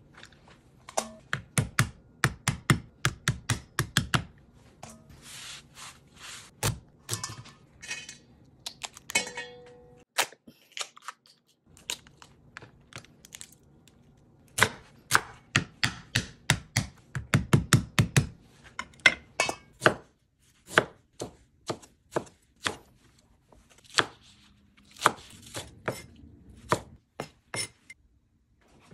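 Kitchen knife chopping through Dungeness crab shell on a bamboo cutting board. It comes as quick runs of sharp knocks of blade on wood and shell, with a short quiet pause partway through.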